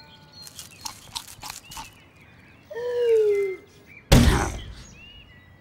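A window slamming shut with one loud thunk about four seconds in. Before it come a few light clicks and a short falling cry.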